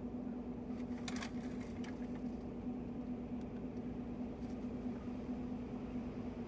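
Steady mechanical hum inside a parked truck's cab, with one strong even tone, from the vehicle's running engine or ventilation. A few faint clicks come about a second in.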